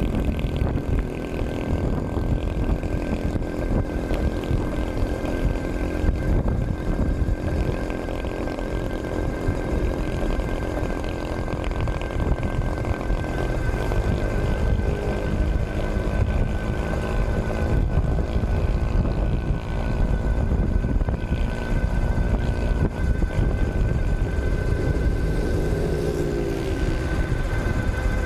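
Wind rushing over the microphone of an electric bike cruising at about 50 km/h, with the steady high whine of its 48 V mid-drive motor running at top speed. Lower pitched hums waver underneath, bending briefly near the end.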